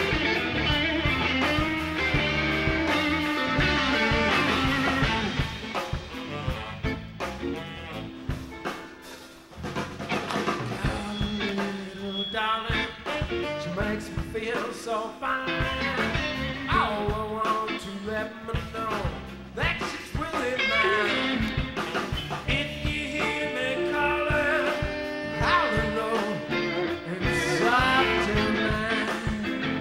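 Live electric blues band playing: electric guitar over bass and drums, with the music dipping briefly about a third of the way in.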